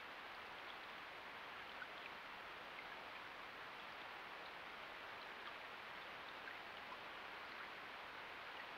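Faint, steady rush of a shallow river flowing, with scattered tiny plinks of water.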